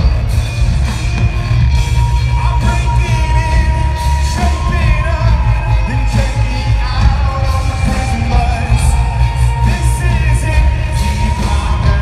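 Live rock band playing loud through an arena PA, with heavy bass and drums under a singer holding long sung notes.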